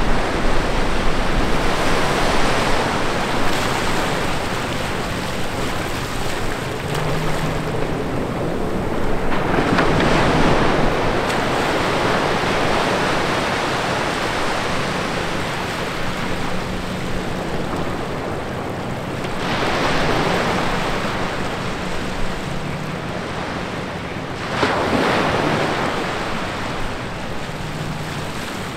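Small ocean waves breaking and washing up over wet sand. Each wash swells and fades every several seconds.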